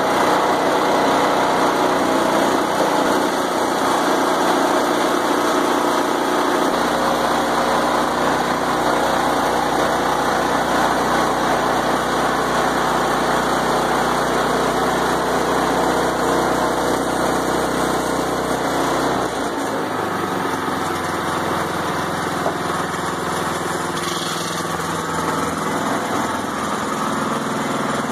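Small gas engine of a portable band sawmill running steadily. Its sound changes about two-thirds of the way through, where its deepest part drops away.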